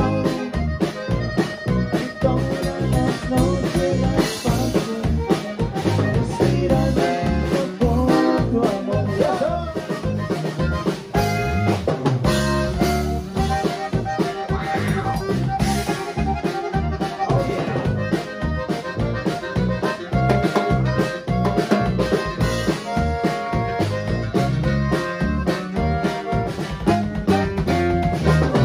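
Live conjunto band playing: button accordion leading over guitar, electric bass and a drum kit, with a steady beat.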